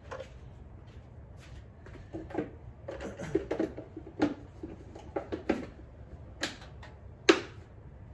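Hard plastic air-intake parts clicking and knocking as they are handled and set down, at an uneven pace, the loudest knock about seven seconds in.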